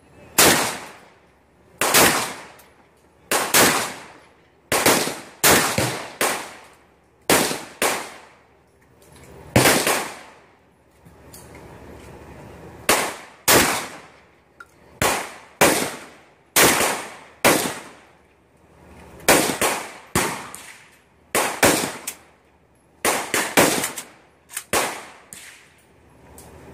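Saiga-12 semi-automatic shotgun fired shot after shot, about twenty rounds in uneven strings at roughly one a second, with brief pauses around 10–12 s and 18 s. Each blast is sharp and trails off in a long echo.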